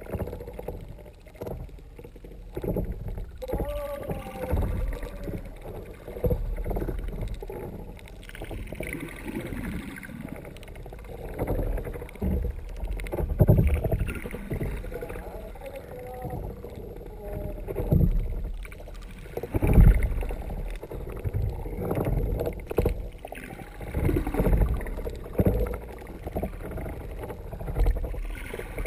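Muffled water noise heard through a GoPro dive housing on the underside of a kayak's hull: a low rushing and sloshing as the hull moves through the water, with irregular louder surges.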